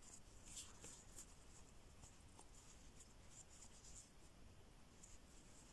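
Near silence with faint, irregular scratchy ticks: a thin metal crochet hook catching and drawing fine yarn through stitches.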